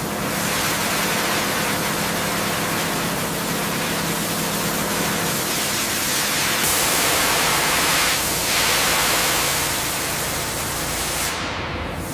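Sandblaster nozzle blasting abrasive grit against rusted metal: a steady, loud hiss that thins briefly near the end.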